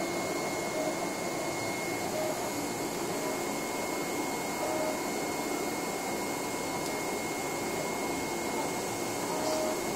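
Flatbed CNC cutting plotter working on a PVC vinyl sheet: the steady airy noise of its vacuum hold-down blower, with a thin steady whine and brief short tones every second or two as the cutting head's motors move it.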